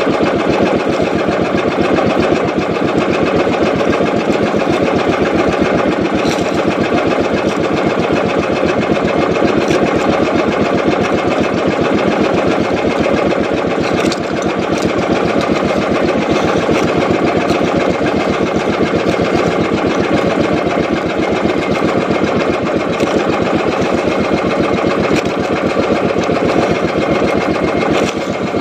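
Small fishing boat's engine running steadily at constant speed, a fast, even chugging close to the microphone.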